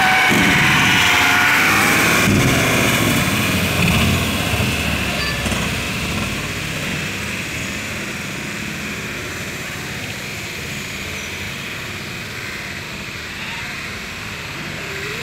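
Road traffic on a wet highway: engines and tyre noise of passing vehicles, loudest in the first few seconds as a vehicle goes by close, then settling to a steadier, quieter background hum.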